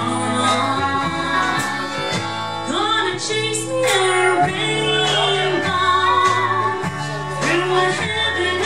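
Live country-flavoured roots band: a woman singing lead over electric guitar, keyboard, drums and a steady bass line. Her voice comes in strongly about three seconds in.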